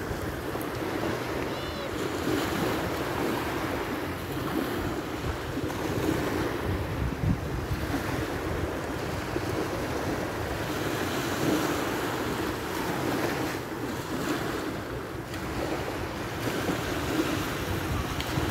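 Small waves breaking and washing up on a sandy shore, with wind buffeting the microphone as a low rumble.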